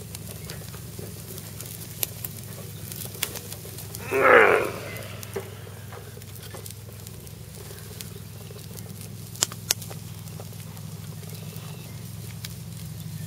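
Wood fire under a grill crackling with scattered sharp pops over a steady low hum. About four seconds in, a short loud cry, lasting under a second, stands out above everything else.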